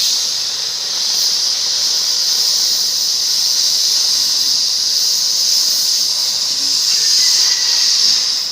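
CNC flame-cutting torch hissing steadily as it cuts through plate, a loud high hiss of the gas flame and cutting jet that dies away at the very end as the cut is finished.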